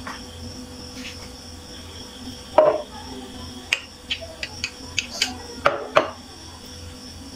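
A metal spoon clinking and scraping against a serving plate as custard is spread in it: a string of light clinks from about two and a half to six seconds in, the first the loudest, over a faint steady hum.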